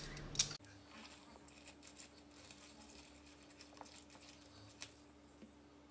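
Quiet handling of a lemon on a plastic citrus juicer: one sharp click about half a second in, then faint, scattered soft ticks as the lemon half is pressed, over a low steady hum.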